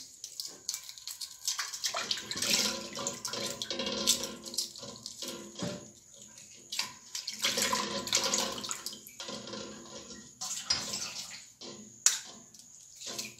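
Water splashing and sloshing in a stainless-steel bowl as hard-boiled eggs are peeled in it, with scattered sharp clicks of eggshell cracking and a louder click near the end.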